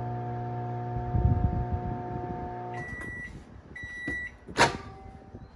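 Microwave oven running with a steady electrical hum that stops about three seconds in, followed by two beeps marking the end of the cook and then a sharp click. The hum is one the owner says still doesn't sound right, from an oven that is not heating food.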